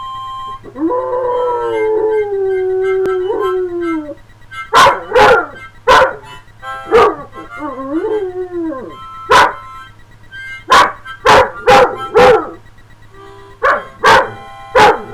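A dog howling along to a harmonica: one long falling howl, then a run of short, sharp barks and yowls, with the harmonica's steady chords underneath.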